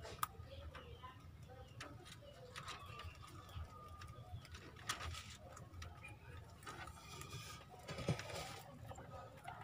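A domestic rabbit chewing a carrot: faint, irregular crunching clicks as it bites and grinds.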